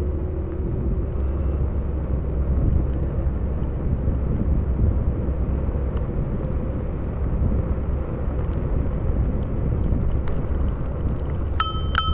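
Steady wind rush and rumble on the microphone while riding along a trail, with two bright ringing dings close together near the end.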